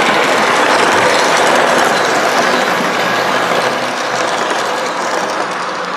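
O-scale model passenger train rolling past close by: a steady rattling rush of metal wheels on the track with fast clicking, easing slightly toward the end.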